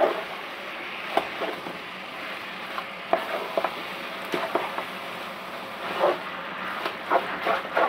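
Spatula scraping and knocking irregularly against a non-stick pot as raw chicken mince is stirred into frying onions and spices, over a steady sizzle.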